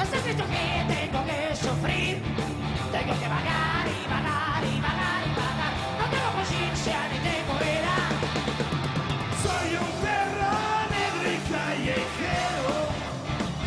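A live rock band playing with two basses, electric guitar and drums, with yelled, sung vocals over a driving beat.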